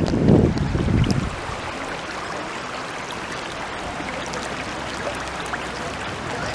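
Spring-fed stream running steadily over stones. Wind buffets the microphone for about the first second.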